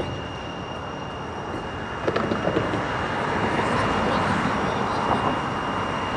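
Steady outdoor background noise, a low rumble with a thin constant high tone over it, and a few faint clicks about two seconds in.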